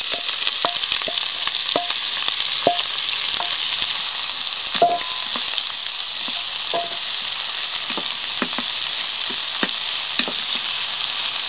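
Diced onions sizzling in hot oil in a stainless-steel frying pan, a steady hiss, as a wooden spoon stirs them and knocks lightly against the pan about twice a second.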